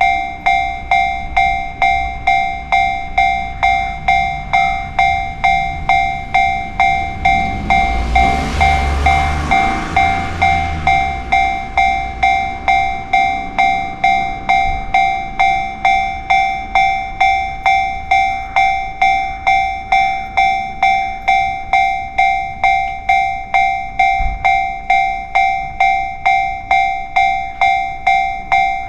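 Japanese railway level crossing alarm ringing steadily, a clear repeating tone at about two strokes a second. A train passes over the crossing about eight seconds in, a rushing rumble lasting a few seconds under the bell.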